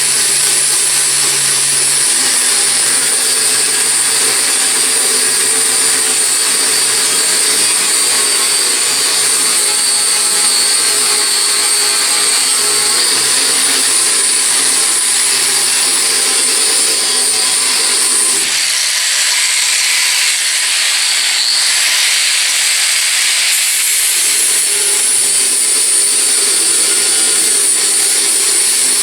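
Grinder running steadily with a high whine, grinding down welds on steel. For a few seconds about two-thirds of the way through, the lower grinding noise drops away and mostly the motor's whine is left.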